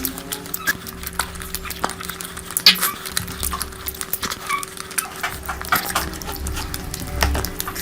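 Close-miked eating sounds: wet chewing, lip smacks and irregular clicks of food being handled, over a steady low hum.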